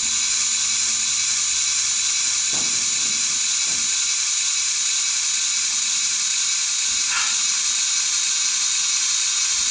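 Sound decoder of a Bachmann OO gauge H2 Atlantic model steam locomotive (Zimo MX644D with Mr Soundguy sound) playing a steady hiss of escaping steam through its small 23 mm speaker.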